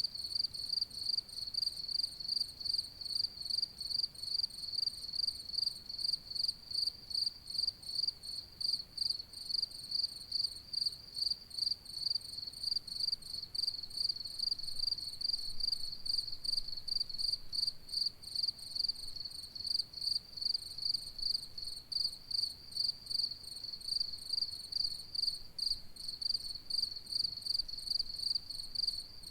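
Cricket chirping at night, a high, even trill pulsing steadily about two to three times a second.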